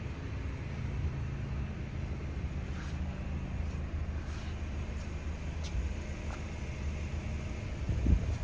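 Steady low rumble with a faint hum, as of an idling engine, and one short thump near the end.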